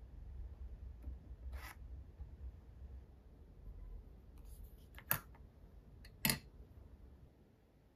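Close, quiet handling of a plastic model wheel and a spring clip on a workbench: a soft scrape, then two sharp clicks about a second apart as the parts are set down.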